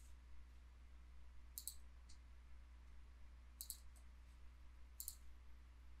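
A few faint computer mouse clicks, some in quick pairs, over near-silent room tone with a low hum.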